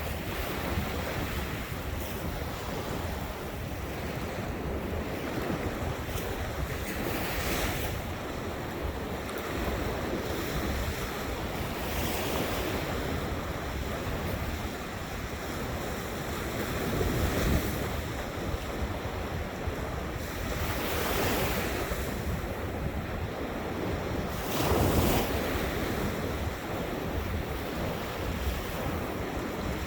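Ocean surf breaking on a shore, a steady wash with a louder wave swelling in every four to five seconds, and wind rumbling on the microphone.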